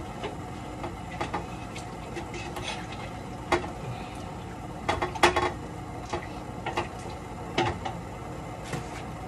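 Kitchen clatter of serving utensils and food containers being handled: scattered sharp clicks and taps, the loudest cluster about five seconds in, over a steady low hum.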